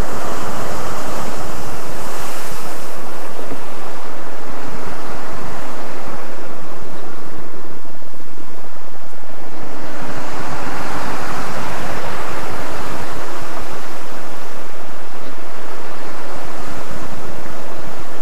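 Heavy sea surf crashing and surging against the base of a rock cliff, with wind buffeting the microphone. The waves swell loudest near the start and again about ten seconds in.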